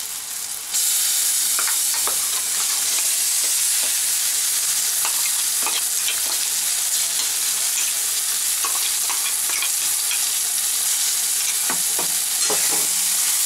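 Hot oil sizzling steadily in an aluminium kadai around fried onion, garlic and spices as wet flat-bean paste is added. Occasional light clicks and scrapes come from a spoon scooping the paste out of a mixer jar into the pan.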